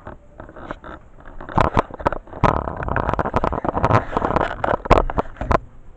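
Rustling and clattering of objects being handled, with a dense run of clicks, knocks and scrapes that starts about a second and a half in and stops shortly before the end.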